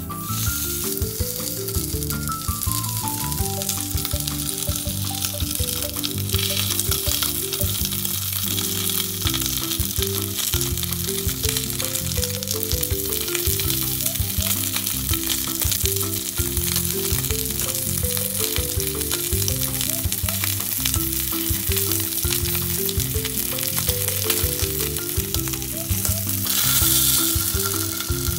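Dried horse mackerel sizzling and crackling steadily as it cooks in hot oil, growing louder briefly near the end. Background music plays underneath.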